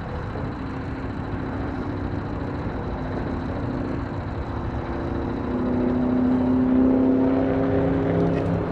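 Boat motor running steadily while trolling, a hum that grows louder a little past halfway.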